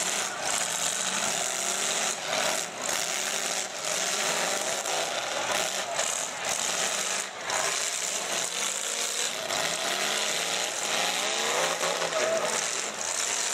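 Several full-size demolition derby cars' engines revving hard under load as the cars push against one another, a dense, noisy din whose engine pitch rises and falls.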